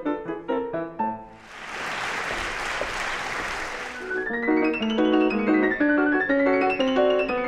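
Steinway & Sons grand piano played in fast runs that break off about a second in, followed by a few seconds of applause. From about four seconds in, rapid arpeggios sweep up and down the keyboard and back again.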